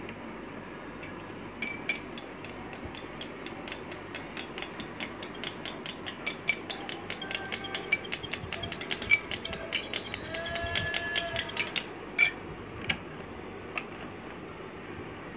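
Metal spoon clinking quickly against a glass bowl while stirring a mixture, about four or five clinks a second, with a faint ring from the glass. The clinking starts a second or two in and stops about twelve seconds in.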